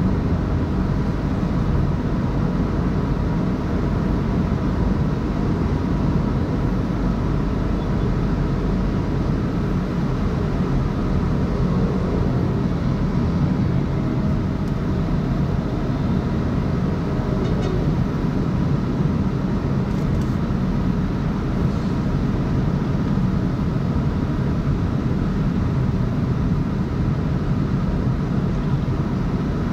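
Steady engine and tyre noise of a car being driven.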